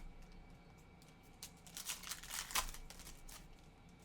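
Trading cards and a foil pack wrapper being handled: a few short, faint, scratchy rustles, most of them between one and three seconds in.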